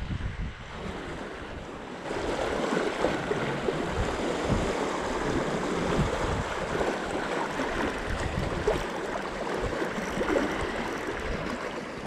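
Gale-force wind buffeting the microphone over waves washing against the rocks: a steady rush of noise that grows louder about two seconds in.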